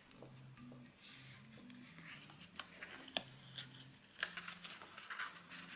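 Faint rustling and crinkling of stiff mirror paper and card being pressed and smoothed down by hand, starting about a second in. A few sharp clicks and taps are the loudest sounds, near the middle.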